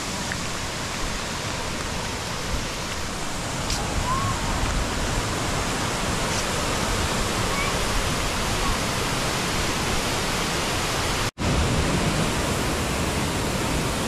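Steady rushing of a waterfall and the stream below it, a loud even hiss that breaks off for an instant near the end.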